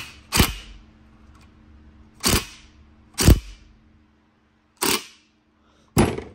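Red cordless power driver run in short trigger bursts, about six of them, each lasting a fraction of a second. It is turning the center screw of a valve spring compressor, pressing down the valve springs on an engine cylinder head.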